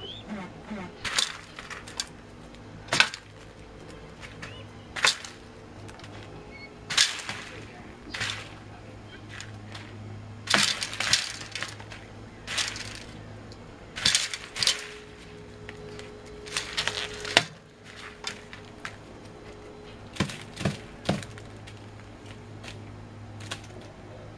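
Young peacock pecking at its food: irregular sharp taps and clinks of its beak against the food dishes and newspaper, singly and in quick clusters every second or two, over a steady low hum.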